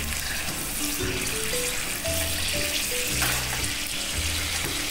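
Garlic cloves deep-frying in hot oil: a steady sizzle, with background music playing over it.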